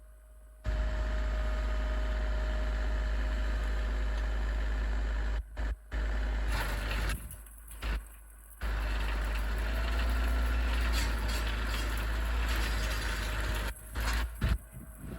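Tractor engine running hard with a heavy low rumble, heard in several short stretches that cut in and out abruptly.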